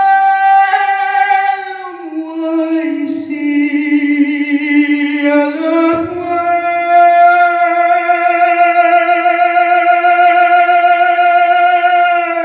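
Singing in long held notes, a lower and a higher line sounding together, with the pitch shifting about two seconds and six seconds in.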